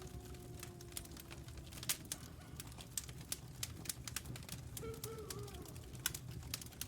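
Wood fire crackling with irregular sharp pops, under distant wolf howls: a long howl slowly falling in pitch fades out in the first two seconds, and a short wavering howl comes about five seconds in.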